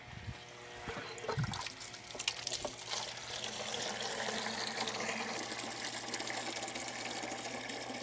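Water from a water heater's drain hose pouring into a plastic bucket, starting about three seconds in after a few short knocks, then running steadily. This is the tank being flushed with the cold supply open, the water carrying sediment stirred up from the bottom of the tank.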